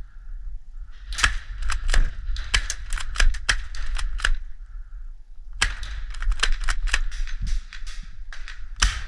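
Airsoft guns firing BBs in two volleys of rapid, irregular sharp cracks, the first from about a second in until about four seconds, the second starting at about five and a half seconds. A low rumble of handling noise runs underneath.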